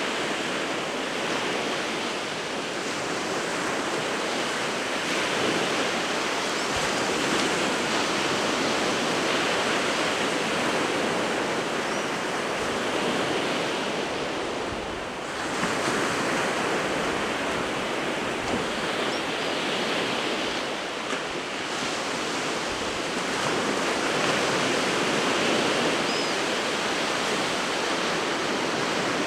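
Winter Sea of Japan surf: waves breaking and washing ashore in a continuous rush that swells and eases every few seconds, with a little wind on the microphone.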